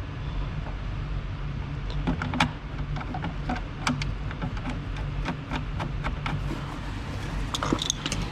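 Scattered clicks and light knocks of seat belt hardware being handled, the bottom hanger and its bolt being lined up, over a steady low hum.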